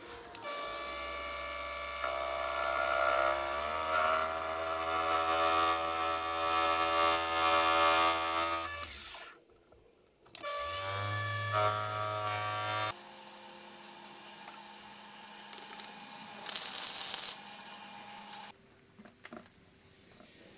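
Small benchtop metal lathe running, its motor humming while it turns a copper washer. It cuts out briefly about nine seconds in and runs again. After that comes a fainter steady hum with a short hiss near the end.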